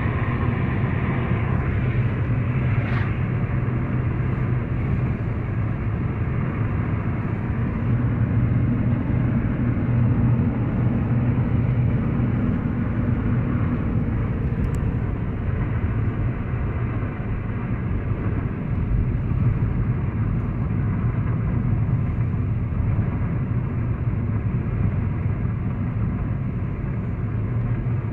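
Steady road and engine noise of a car driving at highway speed, heard inside the cabin as an even low drone.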